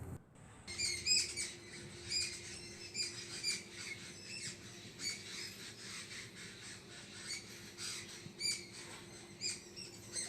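Birds chirping and calling in short, sharp calls that repeat every fraction of a second to a second, with a faint steady hum underneath.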